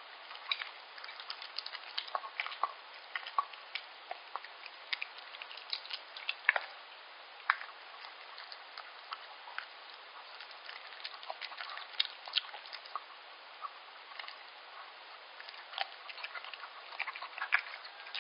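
Yorkshire terrier eating soft liver pâté from a stainless steel bowl: a dense, irregular run of small wet clicks and smacks from its licking and chewing, never settling into a rhythm.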